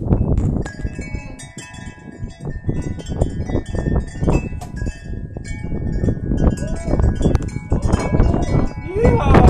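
Metal wind chimes clanking and ringing in gusty storm wind, with loud wind noise and rain beneath.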